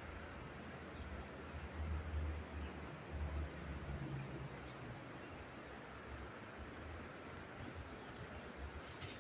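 Small birds giving short, high, falling chirps, scattered several times, faint over a low rumble that swells a couple of times.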